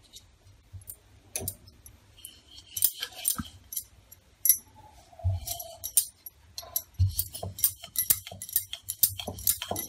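Dough being rolled out with a wooden rolling pin on a marble board: irregular clicks and knocks of the pin on the board, with the light jingle of bangles on the rolling wrists. The clicking grows thick and quick in the second half, with a couple of soft thumps in the middle.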